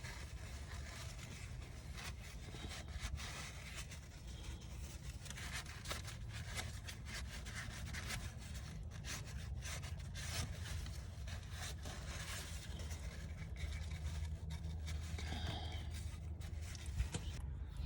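Faint, irregular rubbing, scraping and small clicks of hand work on car parts.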